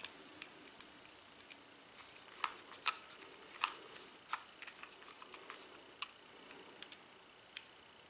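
Faint, irregular small metallic clicks as a bit screwdriver turns a tiny screw into a metal link of a Leatherman multitool bracelet, tightening it; a few sharper clicks come in the middle.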